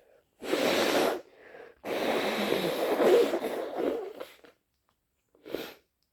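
A person with a head cold blowing a congested nose: a short blow, then a long one lasting over two seconds, and a brief third one near the end.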